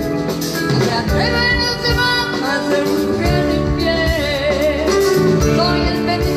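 Rock band playing live, with a sung melody over sustained instruments and a steady drum beat.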